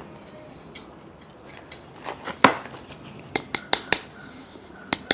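Irregular sharp clicks and taps of hand potting work: a stick poking gritty soil mix down between a plant's roots and knocking against the pot.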